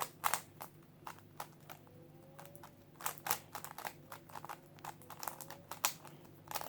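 GAN speed cube being turned fast by hand: irregular plastic clicks and clacks as the layers snap round, in quick bursts with short pauses between them.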